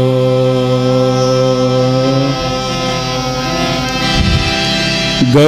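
Devotional bhajan singing: a voice holds one long, steady note that thins out about halfway through while a quieter drone carries on. A new sung phrase with a wavering pitch begins right at the end.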